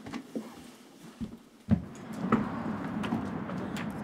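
A front door being opened: a few soft knocks, then a heavier clunk about two seconds in, over a steady background hum.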